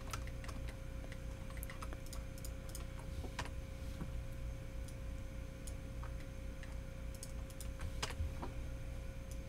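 Irregular clicks of a computer keyboard and mouse being used, a few each second, over a steady low hum and a faint steady tone.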